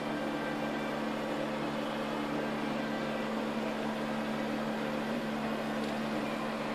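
Steady machine hum over an even hiss, holding level without change.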